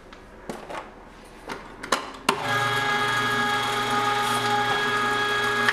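One-horsepower electric meat grinder switching on about two seconds in and then running steadily with a hum, grinding meat. A few light clicks come before it starts.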